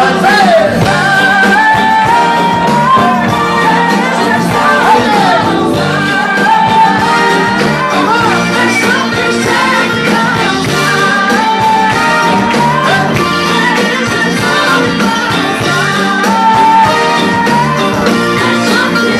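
Live pop-rock band playing loudly with a singer carrying a sustained, gliding melody over guitars and a steady beat, heard through a phone's microphone in the audience.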